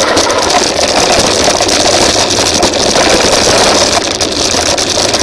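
Rushing wind over the onboard microphone and mountain bike tyres rolling fast over a dirt forest track, loud and steady, with a constant patter of small clicks and rattles from the bike.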